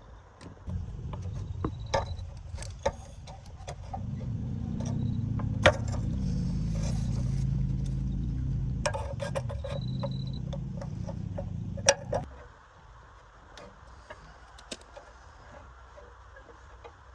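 Old car's engine running with a steady low rumble, louder from about four seconds in, then cut off suddenly after about eleven seconds. Sharp metallic clicks and rattles fall throughout.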